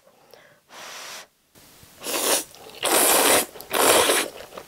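A person slurping Sichuan Chapagetti black-bean-sauce instant noodles: a short slurp about a second in, then three loud drawn-in slurps in quick succession in the second half.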